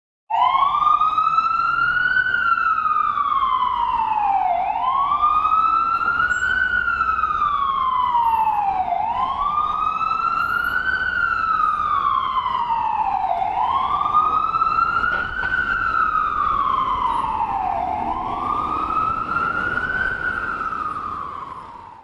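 Ambulance siren in a slow wail, its pitch climbing and falling back about every four seconds, five times over, fading out near the end.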